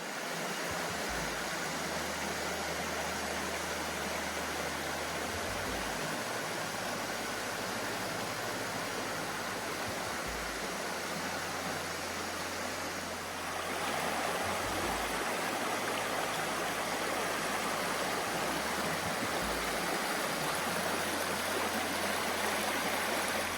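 Rock Creek's water rushing steadily over rocks, a constant rush that gets a little louder about halfway through.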